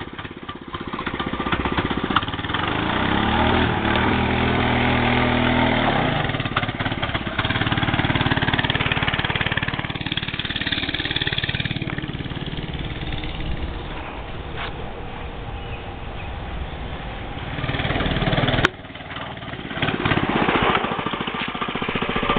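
Doodlebug minibike's small single-cylinder engine, with its governor removed and an aftermarket pipe fitted, revving up as the bike pulls away and then running steadily, its pitch rising and falling with the throttle. The sound breaks off abruptly near the end and then picks up again.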